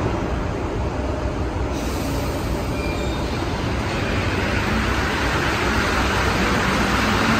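Alstom NS-74 rubber-tyred metro train rolling along the station platform, a steady rumble of tyres and running gear that grows brighter and a little louder in the second half.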